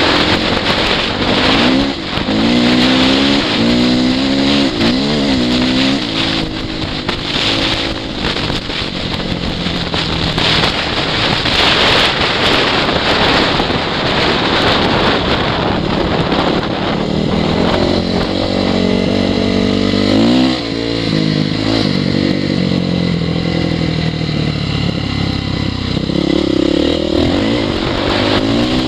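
2002 Honda CRF450R's single-cylinder four-stroke engine revving up and down repeatedly while being ridden, with wind blowing across the microphone.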